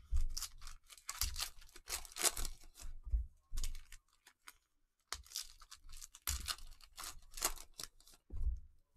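Plastic cello-pack wrappers of trading cards being torn open and crinkled, in two bouts of sharp crackling with a short lull around the middle.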